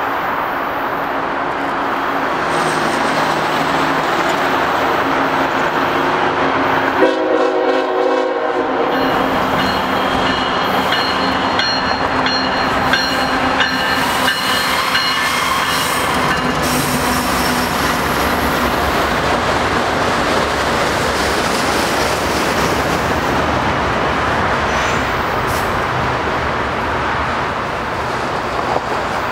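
Norfolk Southern freight train led by GE ES44AC diesel locomotives passing close beneath. The diesel engines drone as they approach, the horn gives a short blast about seven seconds in, and a thin high wheel squeal follows for several seconds. After that comes the steady rolling clatter of the autorack cars going by.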